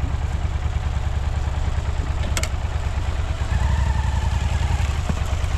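Enduro motorcycle engine running with a fast, steady low pulse, getting slightly louder about three and a half seconds in. A single sharp click about two and a half seconds in.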